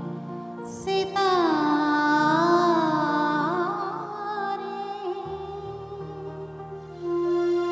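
A woman singing a song through a microphone and PA over instrumental accompaniment. From about a second in she holds long notes with a wavering vibrato, then her voice fades while the accompaniment carries on, with a deeper part coming in past the middle.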